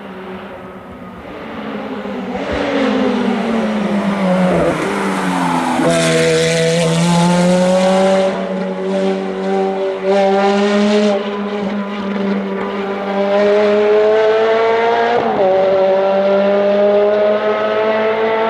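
Ferrari F430's flat-plane V8 through a straight-piped exhaust, running hard on track. Its note falls for a few seconds as the car slows, then climbs steadily as it accelerates, with a brief break in the note near the end as it shifts.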